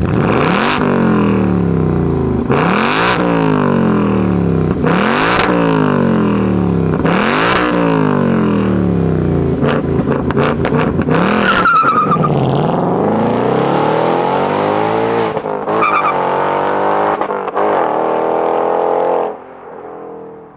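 2024 Ford Mustang Dark Horse's 5.0-litre Coyote V8, heard through its quad-tip exhaust, revved four times, about two seconds apart. It then pulls away with a short tyre chirp and accelerates hard, its pitch climbing in steps as it shifts up, before it drops away near the end.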